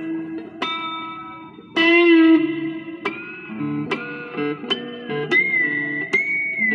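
Electric guitar played through a Joyo DC-15 practice amp: picked single-note lead lines with string bends and vibrato on held notes.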